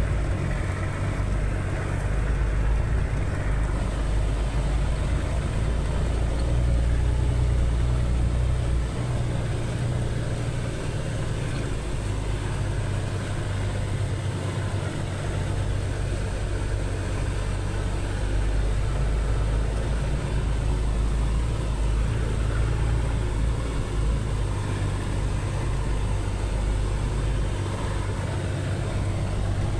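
Vehicle engine running steadily under way on a wet dirt road, a continuous low rumble with road noise.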